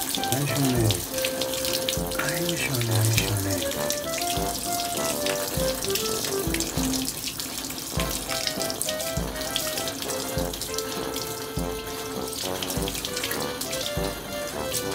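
Water from a hose running and splashing steadily over a wet dog's coat, under background music with a melody and a regular beat.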